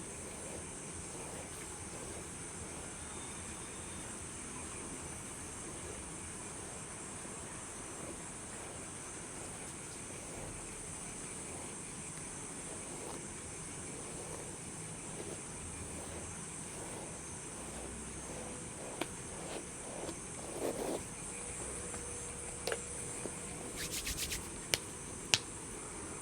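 Steady chorus of crickets chirping over a soft even hiss. A few soft clicks and taps come in the last third, with several sharp clicks a couple of seconds before the end.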